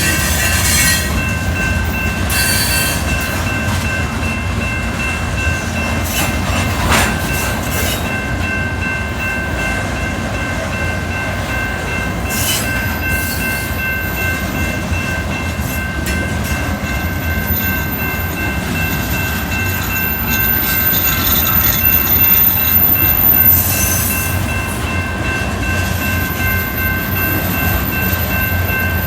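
Train cars rolling past at close range: a continuous low rumble of wheels on rails, with steady high-pitched tones ringing throughout and a few short knocks.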